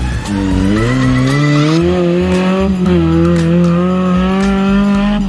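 Engine of an off-road side-by-side buggy accelerating: the revs climb over the first two seconds, then hold high and steady, with a short dip about three seconds in.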